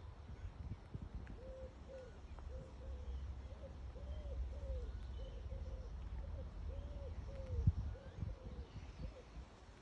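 A pigeon cooing: a run of soft, low, repeated notes in short phrases. A low rumble of wind on the microphone runs underneath, with a single bump about three quarters of the way through.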